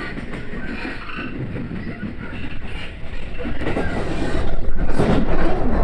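Yamatoji Rapid Service train running on the rails, a steady rumble that grows louder over the second half.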